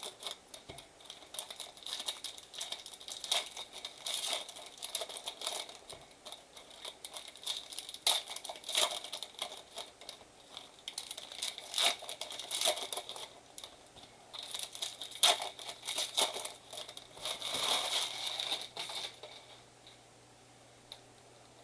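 2023 Bowman baseball card pack wrappers crinkling and tearing as the packs are ripped open, in irregular bursts that stop about nineteen seconds in.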